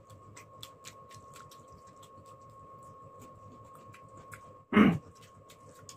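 Close-up eating sounds of noodles being eaten by hand: a run of small, sharp mouth clicks and smacks from chewing, over a faint steady high tone. A brief loud vocal sound cuts in about five seconds in.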